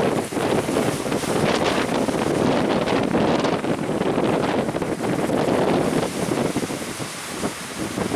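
Strong wind buffeting the microphone in uneven gusts, over the rush of surf.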